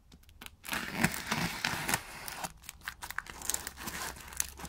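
Knife slitting clear plastic packing tape along the seam of a cardboard box: a run of irregular crackles and tearing of the tape, starting about half a second in.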